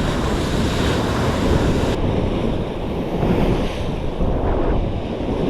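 Ocean surf washing against a rock ledge, with wind buffeting the microphone.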